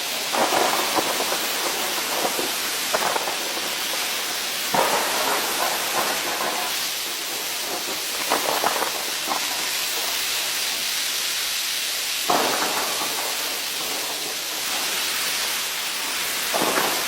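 Heavy rain falling in a steady hiss, with louder, heavier spells of pattering every few seconds.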